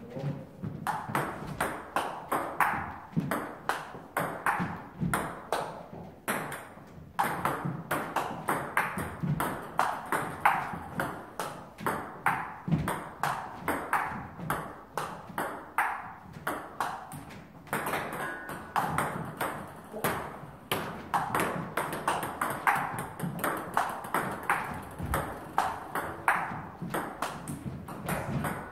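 Table tennis rally: the plastic ball clicking off rackets and table several times a second, with one racket faced with Butterfly Ilius S long-pimple rubber. Play breaks off briefly about six seconds in, then the rally resumes.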